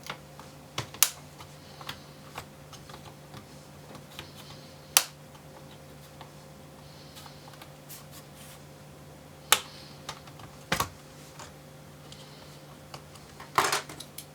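Plastic pry tool working along the seam of a laptop's bottom panel, with scattered sharp clicks and snaps as the base's plastic clips unclip. The clicks come several seconds apart, with a quick cluster near the end.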